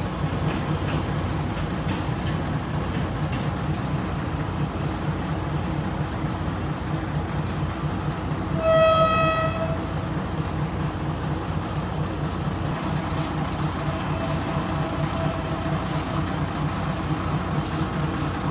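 Philippine National Railways diesel passenger train idling at the platform, a steady low pulsing engine hum. Its horn gives one short blast about halfway through, the loudest sound.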